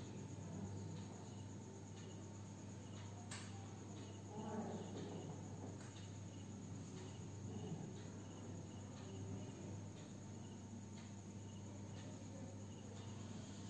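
Faint insect chirping, short high chirps repeating at a steady pace, over a steady low hum; a single sharp click about three seconds in.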